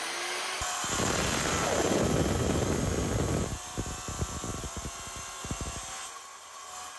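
Wet tile saw with a 7-inch porcelain blade cutting through a porcelain tile, a really loud steady grinding over a high motor whine. The grinding is heaviest for the first three seconds or so, then eases as the cut finishes, with the saw still running.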